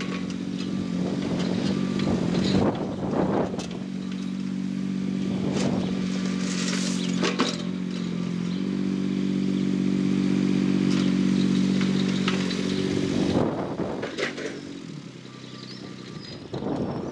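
Mini digger's diesel engine running steadily, its revs rising for a few seconds past the middle and dropping back. Short scrapes and rattles of gravel come several times as the bucket levels the stones.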